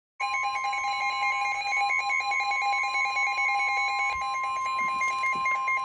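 NOAA Weather Radio's steady 1050 Hz warning alarm tone starting abruptly a fraction of a second in, sounding for a tornado warning, with a weather radio receiver's own alarm beeping rapidly over it.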